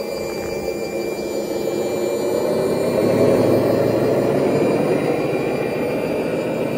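RC model Scania tipper truck running its engine sound and motors while the tipper bed is lowered. The running noise swells and grows louder about three seconds in.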